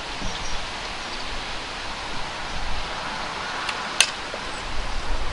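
Steady wind noise buffeting the microphone, with rustling. About four seconds in, a single sharp click as the action of the Kral Puncher NP-02 .177 PCP air rifle is worked while loading.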